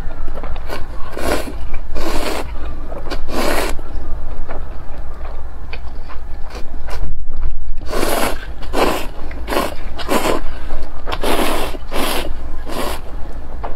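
Instant ramen noodles being slurped from a bowl of broth, heard close up as a series of short, loud slurps. The slurps are spaced out in the first half and come in quicker succession in the second half.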